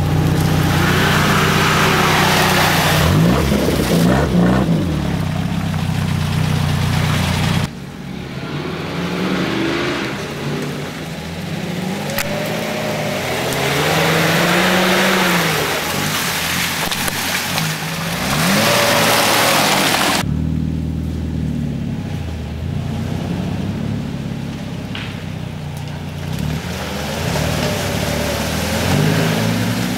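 Off-road 4x4 engine revving up and down again and again while driving through mud, with a rushing noise over it. The sound drops abruptly twice, about a quarter and two thirds of the way through.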